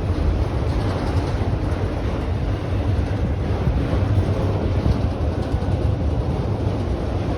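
Freight train of autorack cars rolling past on the rails, a steady low rumble with wind buffeting the microphone.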